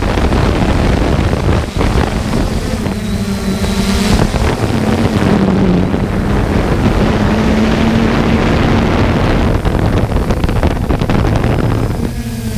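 Motor and propeller hum of the small aircraft carrying the microphone aloft, a steady drone whose pitch wavers slightly up and down, mixed with heavy wind buffeting on the microphone.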